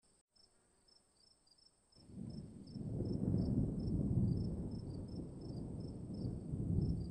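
Insects chirping in a quick, regular rhythm over a constant high trill. About two seconds in, a deep rushing rumble swells up underneath and stays.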